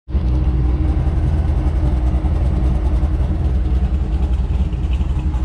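Cammed V8 engine idling with a choppy lope: the uneven, pulsing idle of an aggressive camshaft.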